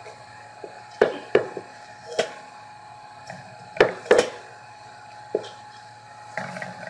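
Parboiled rice being scooped by hand from a plastic bowl and dropped into a steel cooking pot, with about six sharp knocks of bowl, hand and pot spread through the seconds.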